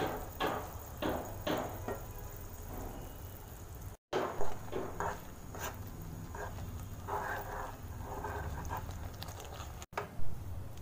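Water at a rolling boil in a pan. After about four seconds, a spoon stirs roasted rice flour into the hot water, with repeated short scrapes against the pan as it turns into a crumbly dough.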